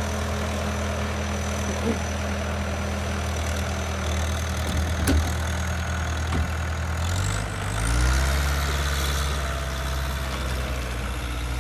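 Vehicle engine running steadily at idle, then revving up to a higher, steady speed about seven seconds in. A short click is heard about five seconds in.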